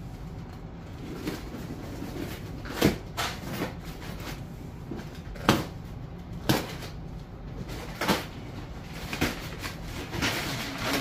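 Cardboard box being cut open and unpacked by hand: a series of sharp cardboard knocks and rustles, about seven spread through the stretch.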